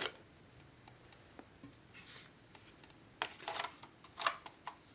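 A few faint clicks and rustles of handling, bunched together from about three seconds in, in an otherwise quiet room.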